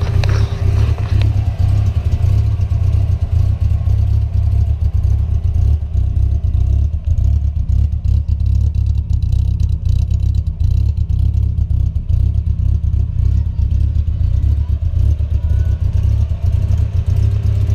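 Holden Gemini driving, its engine and the road giving a steady low rumble.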